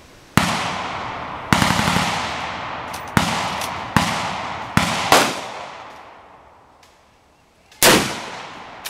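A string of about seven gunshots over eight seconds, unevenly spaced, each sharp report trailing off in a long echo.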